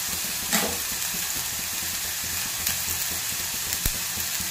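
Chopped onions sizzling in hot oil with mustard seeds in a steel pot: a steady high frying hiss, with a few sharp clicks.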